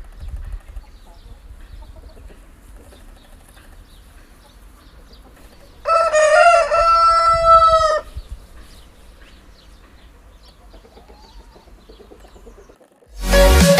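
A rooster crows once, a call of about two seconds with a rise and then a held note, about six seconds in, over a faint farmyard background. Loud electronic music starts just before the end.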